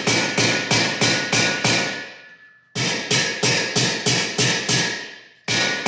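Rubber mallet hammering in steady runs of about three blows a second on a bar braced against a Viper exhaust pipe, with a metallic ring, driving the pipe into its flange. It pauses briefly twice between runs.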